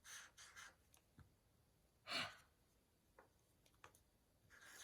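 Near silence with a few faint short rustles, and one brief breath-like sound about two seconds in.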